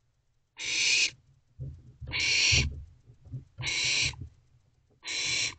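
Barn owlets hissing: four breathy hisses of about half a second each, roughly one every second and a half. Soft low thumps and scuffling come between them around the middle.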